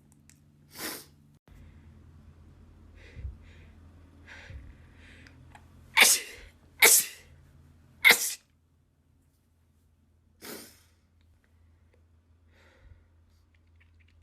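A woman sneezing in a rapid series: a softer sneeze about a second in, then three loud sneezes about a second apart midway, and one more softer sneeze a couple of seconds later.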